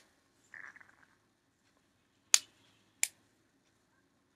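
A faint short rustle, then two sharp light clicks about two-thirds of a second apart as a plastic container is handled and set down.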